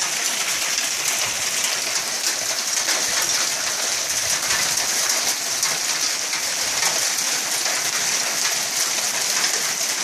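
Dense sleet falling: a steady hiss of ice pellets, peppered with many fine ticks as they hit the ground.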